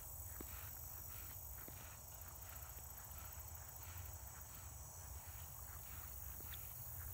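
Soft footsteps through grass, about two steps a second, over a steady high drone of insects and a low rumble.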